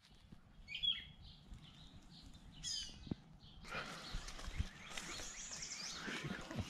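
Wild birds chirping and singing in woodland: a few separate high chirps at first, then a fuller, denser chorus from about halfway in, with a few soft low thumps.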